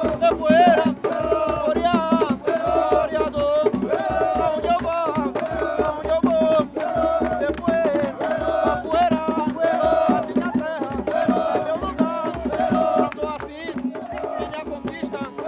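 Music with steady drumming and percussion under a wavering, sustained melodic tone.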